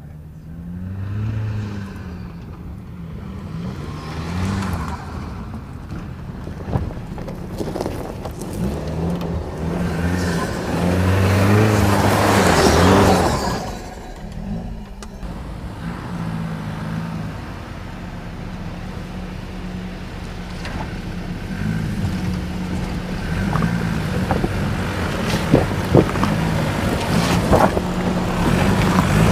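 Toyota Tacoma i-FORCE MAX's turbocharged 2.4-litre inline-four engine revving up and down as the pickup drives a dirt trail. It is loudest about halfway through, where it passes with a rush of kicked-up dirt. Later it runs steadier, with a few sharp knocks near the end as the tyres climb over rock.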